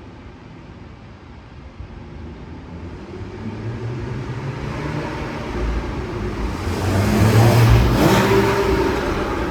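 Porsche Boxster 981 flat-six with stock exhaust accelerating past. It grows louder for several seconds, is loudest about eight seconds in, then drops in pitch and fades as it goes by.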